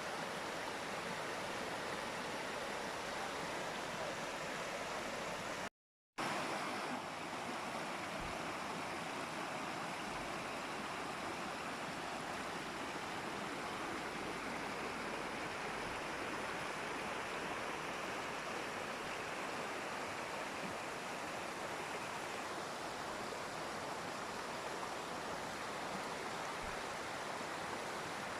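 Steady rushing of a waterfall, an even wash of falling water. About six seconds in it cuts out to silence for a split second, then resumes with a slightly different tone, as at a splice between recordings.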